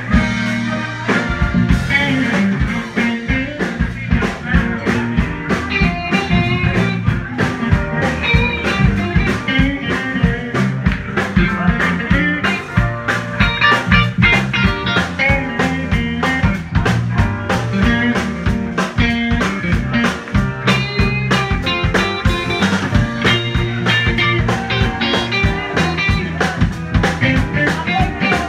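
Live band playing: electric guitar, bass guitar and keyboard over a steady drum beat.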